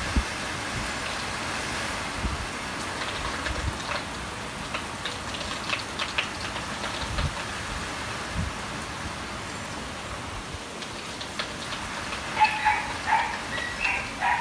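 Steady typhoon rain hissing, with occasional low thumps of wind on the microphone. A dog barks several times near the end.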